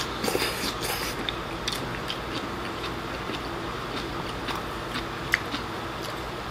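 Close-up eating sounds: a short slurp as a bite of stir-fried pork and pea shoots is drawn in near the start, then chewing, with scattered light clicks of chopsticks against the rice bowl, one a little sharper about five seconds in.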